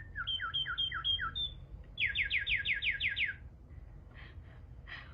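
Whistled imitation bird calls. A held whistle breaks into a string of about five falling notes, and after a short pause comes a faster run of about eight high notes, each sweeping downward.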